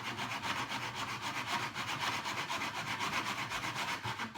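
Hand saw cutting primed quarter-round molding in a miter box, with quick, even back-and-forth rasping strokes.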